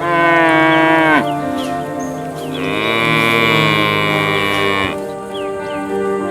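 A cow mooing twice: a short moo that falls in pitch at its end, then a longer, steadier moo.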